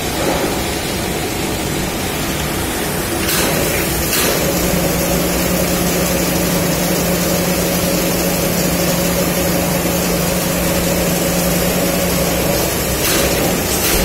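Gas carburizing furnace running: a steady rushing noise with a hum. It gets a little louder about three seconds in, and a steady low hum joins about four seconds in and stops near the end.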